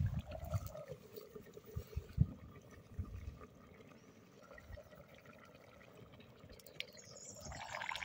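Stew simmering faintly in a pot over wood embers, with a few low knocks from the pot and bread lid being handled. A brighter hiss builds near the end.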